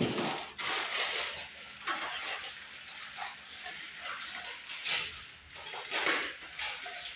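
Plastic packaging crinkling and rustling in irregular bursts as it is handled.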